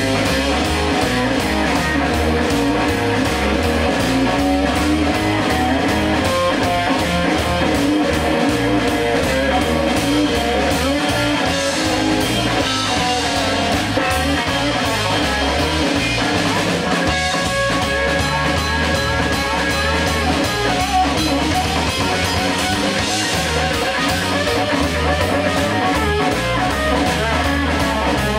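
Live band playing an instrumental passage: guitar over a steady bass line and drum kit, with no singing.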